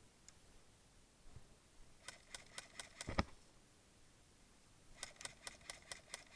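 Airsoft guns firing in quick runs of sharp clicks, about five shots a second. One run starts about two seconds in and ends with a heavier knock; a second run starts near the end.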